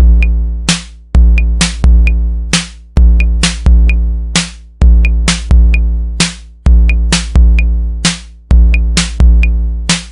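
Electronic background music with a drum-machine beat and heavy bass hits, about two a second.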